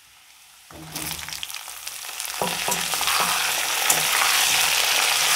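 Cut ridge gourd pieces dropped into hot oil in a metal kadai. About a second in the oil starts sizzling and swells to a loud, steady sizzle, with a few knocks and scrapes of a metal spatula against the pan.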